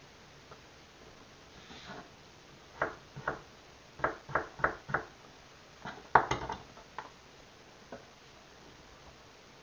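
Kitchen knife knocking on a wooden cutting board while chopping onion: a couple of strokes, then a quick run of four, followed by a louder clatter about six seconds in and a few single knocks.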